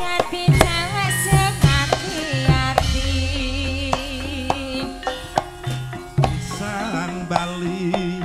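Javanese gamelan music: kendang hand-drum strokes, some with bending pitch, over ringing metallophone tones and a low held gong tone in the middle.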